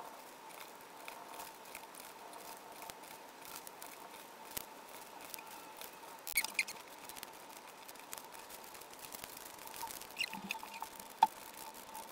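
Paper being folded and creased by hand: faint rustles and small clicks with a few short high chirps, over a faint steady high hum. The sharpest click comes near the end.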